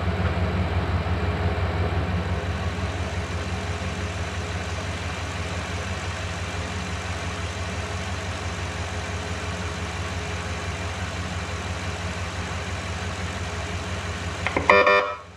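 Pickup truck engine idling steadily, with a short horn blast near the end.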